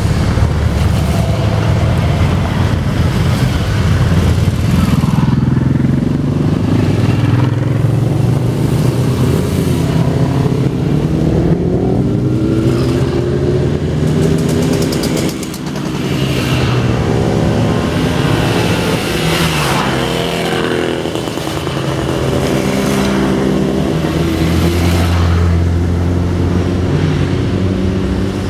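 A procession of motorcycles riding past one after another, engines running. Their pitch rises and falls as each bike approaches and goes by, several overlapping at once.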